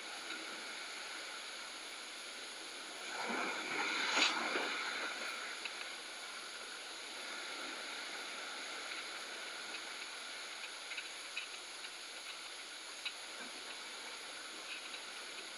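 Sea surf washing against the rocks below as a steady hiss, with one louder wave surging in about three seconds in.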